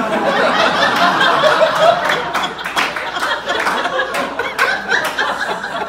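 Comedy club audience laughing together at a punchline, with scattered clapping, easing off slightly toward the end.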